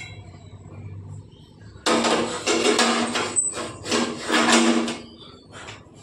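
Gas stove burner part twisted and worked by hand through a cloth, metal grating on metal. A run of about five loud grating strokes starts about two seconds in.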